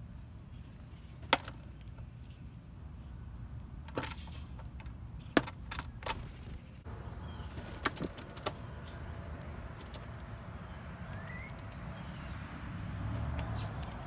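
A blue jay flutters in and lands on a stone dish of peanuts, its wingbeats mixed with sharp taps and clicks, several close together around the middle. A short faint rising chirp comes near the end, over a steady low background rumble.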